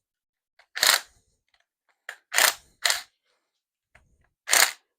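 Four short, sharp clicking bursts of hand-tool work on a Maserati V8 cylinder head as the camshafts are being taken off.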